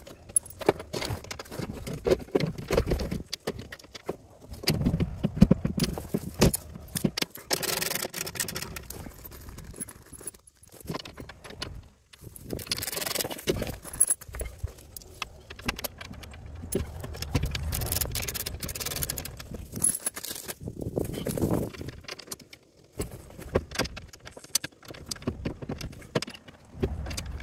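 Small metal hardware clinking and jangling, with irregular knocks and scrapes, as a skid plate is positioned and its bolts and retainers are fitted under a UTV. Several longer rustles are mixed in.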